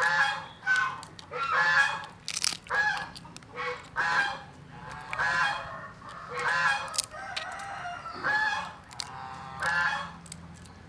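Geese honking in repeated short calls, roughly one a second, with sharp clicks of a cooked crab's shell being pulled apart.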